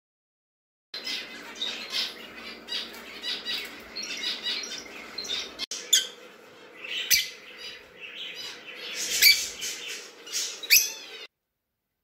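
Pet budgerigars warbling and chattering in their cage, a dense run of short chirps. Nearly halfway through the sound cuts to sharper, louder single chirps and calls from a small caged finch.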